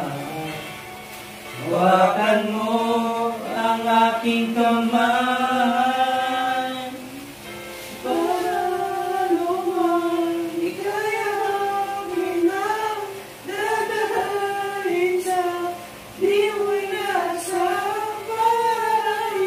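Singing with music: a slow song sung in long held notes, phrase after phrase with short breaks between them.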